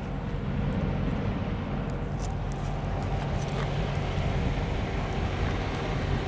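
Steady low rumble of vehicle engines running, unchanging throughout, with a few faint light clicks on top.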